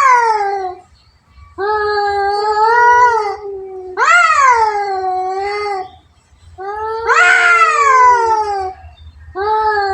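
Cats yowling at each other in a fight: long, drawn-out wavering wails, one after another with short pauses, each rising and then sliding down in pitch.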